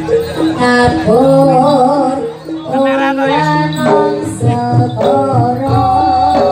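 Javanese jaranan (kuda lumping) folk music played live: a singer holds long, wavering notes over the ensemble's percussion.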